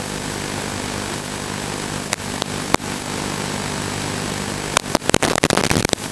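Audio carried on an FPV racing quad's analog video feed: a steady buzzing hum under constant hiss, with a few sharp clicks and a burst of crackling static near the end.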